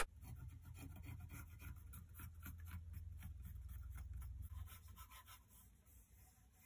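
Faint scratching of a pencil drawn along the edge of a wooden bass body blank, marking out the comfort-carve line, over a low hum. The strokes stop about five seconds in.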